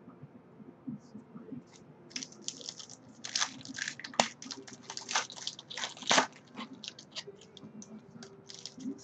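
Trading card pack wrapper crinkling and tearing as it is opened by hand: a dense run of irregular crackles that starts about two seconds in and thins out near the end.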